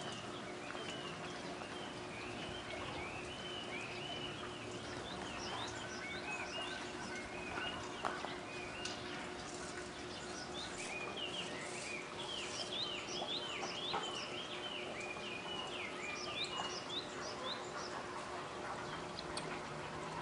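Short, high chirping calls, several a second and each rising then dropping, over a faint steady hum.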